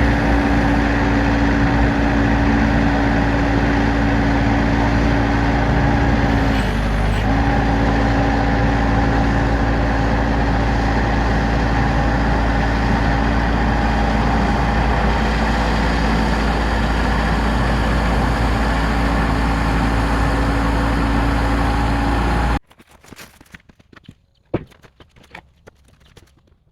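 An engine running steadily at a constant speed, dipping briefly in pitch about seven seconds in. Near the end it cuts off suddenly, leaving near quiet with a few faint clicks.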